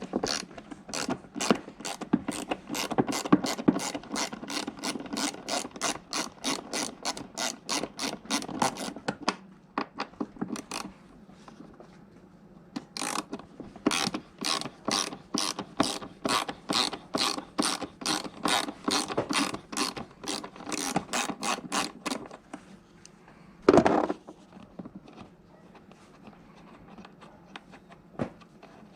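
A hand ratchet wrench being worked back and forth on a moped fastener, clicking about four to five times a second in two long runs with a short pause between them. One louder knock comes near the end.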